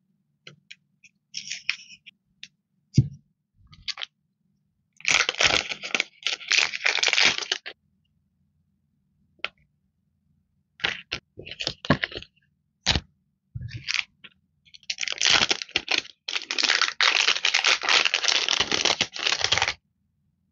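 Clear plastic packaging of sticker sheets crinkling and crackling as it is handled and opened, in two long stretches, about five seconds in and again near the end, with scattered short crackles and a few light knocks between.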